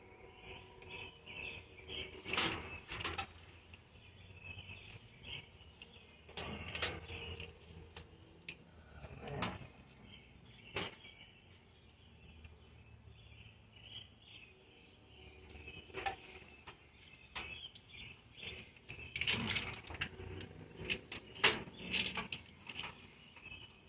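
Scattered clicks, scrapes and rustles of an old vehicle wiring harness being handled while its electrical tape and wrap are cut and peeled off with a knife, over a faint, steady high chirping.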